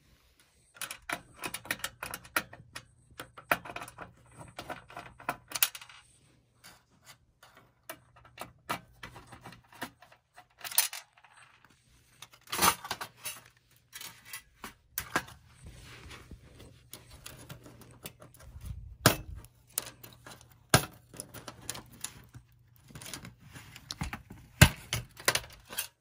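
Metal and plastic parts of a half-dismantled DVD player being handled, knocked and pulled apart: irregular clicks, taps and clattering, with scattered sharp knocks, the loudest near the end, over a faint steady low hum.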